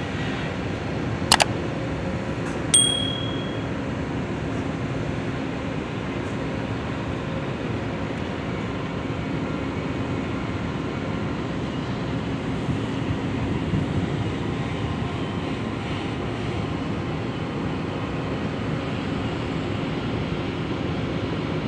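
Steady machinery drone with a faint low hum in it, running evenly throughout. A sharp click comes about a second in, and a short bell-like ding follows a second and a half later.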